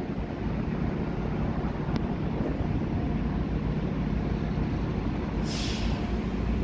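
Steady low rumble of a train pulling away from the platform, with wind on the microphone. A short hiss comes about five and a half seconds in.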